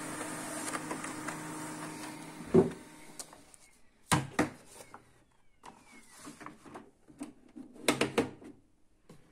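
HP LaserJet Pro MFP M127fw laser printer running as it feeds paper, a steady mechanical hum that ends in a loud thump about two and a half seconds in; the pickup roller now takes the paper. Then a few sharp plastic clicks and knocks as the printer's control panel is handled and tilted up.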